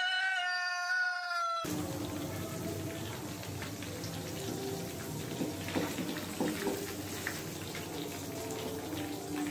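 A rooster crow, thin with its low end cut away, fills the first second and a half. Then chicken pakora pieces sizzle steadily in hot frying oil, with a few clicks and scrapes of a wire strainer and wooden spatula against the pan.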